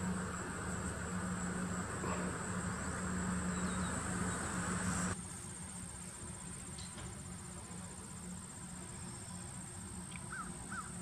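Outdoor swamp ambience: insects trill steadily and high throughout, with a few short bird chirps. A low steady hum underneath cuts off suddenly about five seconds in.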